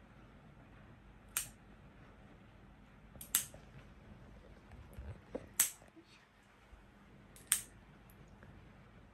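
Scissor-type cat claw clippers snipping a kitten's claws: four sharp clicks, about two seconds apart.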